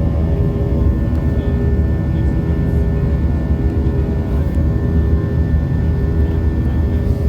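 Jet airliner's engines heard inside the cabin: a steady, loud drone with a deep rumble and several steady hum tones above it.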